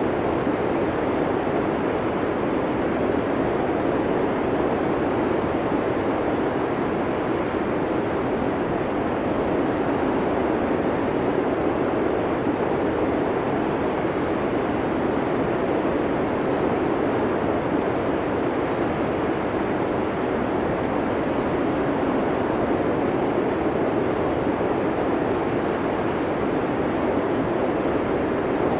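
Blizzard wind blowing steadily, a dense rushing noise that swells and eases slightly without ever dropping away.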